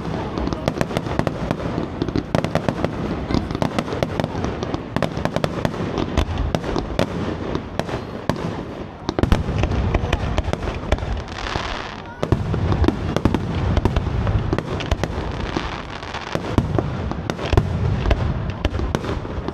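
Fireworks display: a dense, unbroken run of bangs and crackles from bursting shells. A rush of hiss comes about twelve seconds in, and deep low booms build through the second half.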